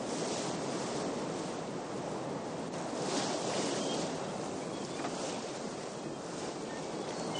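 Sea water rushing and foaming along the hull of a sailing brig under way, with wind: a steady rushing that swells a little about three seconds in.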